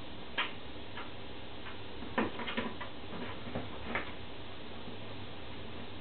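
Irregular light clicks and taps over a steady background hiss and low hum, with a quick cluster of them a little over two seconds in and none in the last two seconds.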